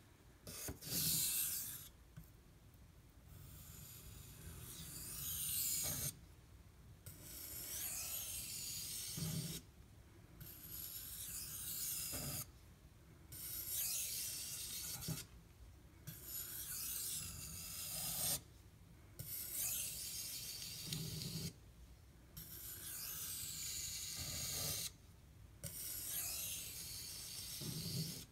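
Steel knife blade being drawn across a wet sharpening stone worked up with slurry: a scratchy rasping in long strokes, about one every three seconds, with short breaks between. The edge is being cleaned of its remaining burr.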